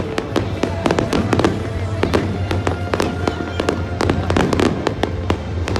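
Fireworks display: a dense, continuous barrage of bangs and crackling reports, several every second, over a steady low rumble, with music playing underneath.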